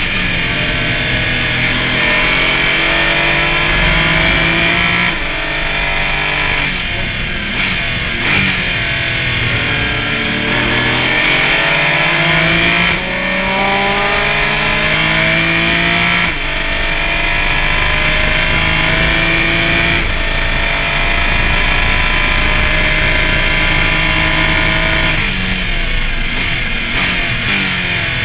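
Porsche Cayman race car engine at racing speed, its pitch climbing through the gears with short drops at each shift. Near the end come several quick downshift blips, with steady wind and road hiss throughout.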